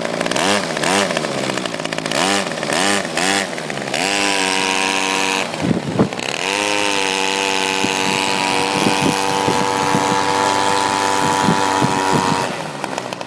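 Small two-stroke weed-whacker engine running on a test bench: the throttle is blipped several times, then held at high revs for about eight seconds with a brief drop and pick-up near the middle. It falls back toward idle near the end.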